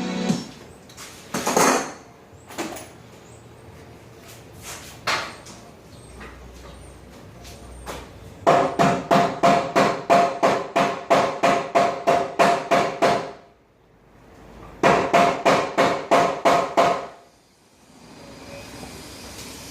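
Hammer blows while knocking apart a loft platform. A few single knocks come first, then two fast runs of blows at about four a second, one lasting about five seconds and one about two, each blow ringing.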